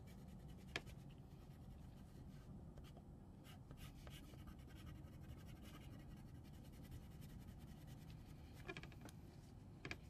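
Faint scratching of a wax crayon rubbed back and forth on paper, blending one colour over another, with a light click just under a second in.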